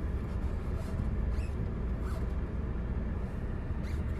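Jeep Meridian SUV crawling slowly over a dirt off-road course, heard from inside the cabin: a steady low rumble, with a few faint short squeaks.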